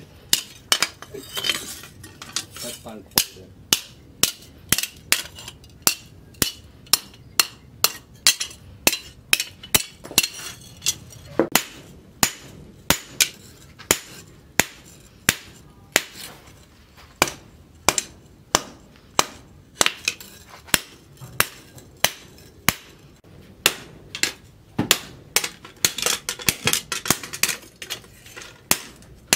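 Hand hammer forging a red-hot leaf-spring steel cleaver blade on a steel post anvil: sharp metallic blows at about two a second, each ringing briefly, with a few short pauses between runs of blows.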